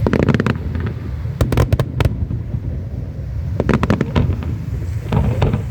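Aerial fireworks bursting in four quick volleys of sharp cracks and pops, over a steady low rumble.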